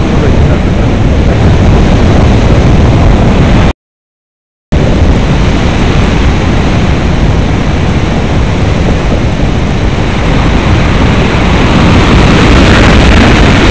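Wind buffeting a small camera's microphone in tandem paraglider flight: a loud, steady rushing noise, heaviest in the low end. About four seconds in, the sound cuts out completely for about a second, an audio dropout.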